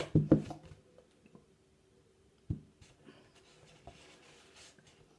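Cardboard box being handled and set down: a quick cluster of knocks and scrapes right at the start, a single thump about two and a half seconds in, then light rustling and clicks.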